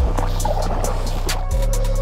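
Background music with a steady electronic beat: deep bass kicks that slide down in pitch, with crisp hi-hat ticks over a held tone.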